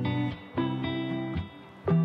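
Background music: sustained pitched chords, with new notes struck every half second or so.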